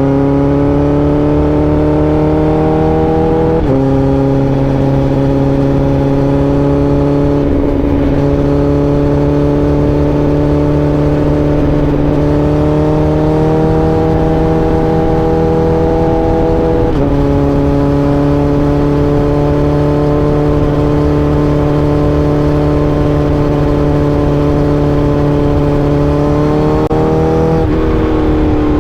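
Honda CBR1000RR-R SP's inline-four engine running at cruising revs under light acceleration, its pitch creeping slowly upward. It makes upshifts about four seconds in, about seventeen seconds in and near the end, each a sudden drop in pitch.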